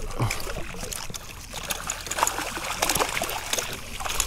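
Water splashing and trickling, with many small clicks and knocks scattered throughout, as a just-caught redfish is handled at the water's edge of the boat.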